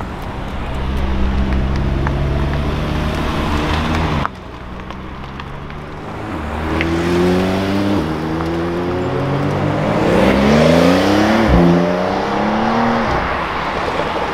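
Sports car engines driving off one after another: a deep, steady engine note, then after a cut a Porsche 911's flat-six accelerating hard, its pitch climbing in several rising sweeps through the upshifts.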